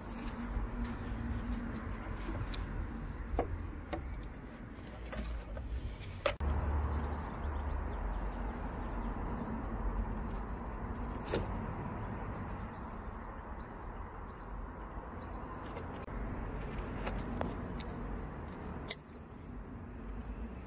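Scattered clicks and light rattles of the plastic front bumper and its wiring connectors being handled, over a steady low rumble. A sharp click near the end is the loudest sound.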